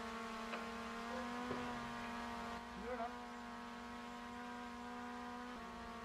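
A steady hum with a stack of even overtones, shifting slightly in pitch near the end, with a few faint clicks in the first couple of seconds.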